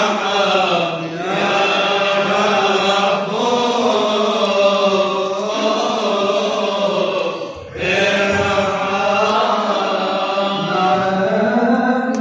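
Male voice chanting a Coptic liturgical hymn unaccompanied in long, slowly wavering held notes, with one short break for breath about seven and a half seconds in.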